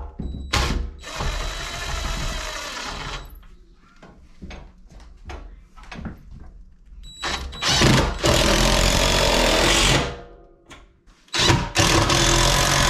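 DeWalt cordless impact driver hammering screws through a steel wall safe's frame into the wooden wall studs, in three runs of a few seconds each: near the start, about two-thirds of the way in, and again near the end.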